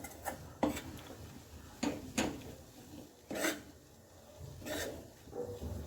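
A spatula scraping and stirring besan roasting in ghee in a kadhai, as a series of short scrapes and knocks against the pan, roughly one a second.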